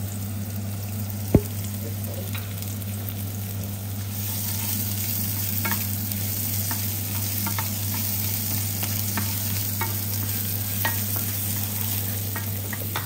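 Diced onion and sliced green chillies sizzling in hot oil in a frying pan, stirred with a wooden spatula that taps against the pan; the sizzle grows brighter about four seconds in. One sharp knock comes about a second in, over a steady low hum.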